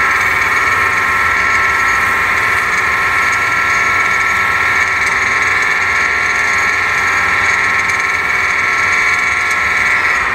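Wood lathe running steadily at speed with a high motor whine while a purpleheart handle spins between centres and is worked by hand.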